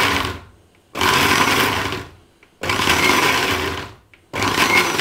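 Indian mixer-grinder (mixie) running in short pulses on its whipper setting, its small steel jar grinding a thick, dry mix of roasted sesame seeds, green chilies and fried greens with no water added. The bursts last about a second each, with half-second pauses between them.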